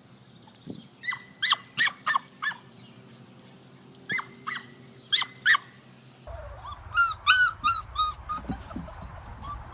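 A dog whining and yipping in short, high-pitched cries that fall in pitch, several in quick succession. About six seconds in, a different scene follows with a fast run of repeated high yips and whimpers.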